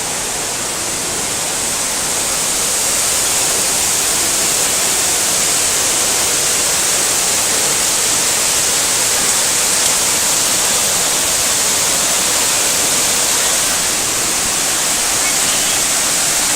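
Waterfall pouring close by: a loud, steady rush of falling water that holds even throughout.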